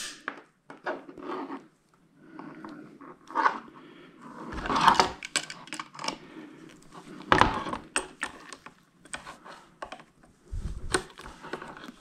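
A small hammer tapping and handling a copper split bolt clamped on three heavy copper wires: scattered metallic clinks and knocks, a few of them louder. The taps are meant to seat the wire strands in the bolt.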